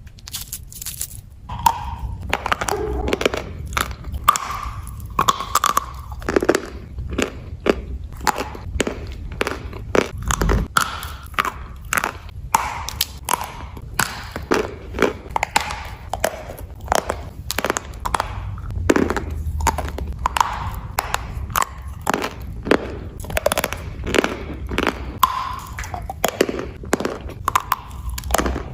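Dry chalk being bitten and chewed close to the microphone: a steady run of many crisp, irregular crunches.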